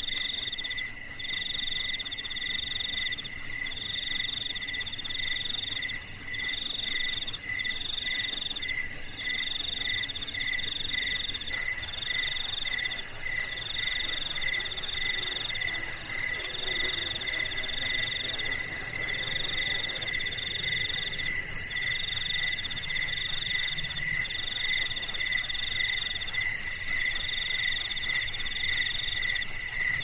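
Several crickets chirping together at different pitches and rhythms: a fast, unbroken high trill, a lower trill broken by brief gaps every second or two, and a still lower chirp repeating about twice a second.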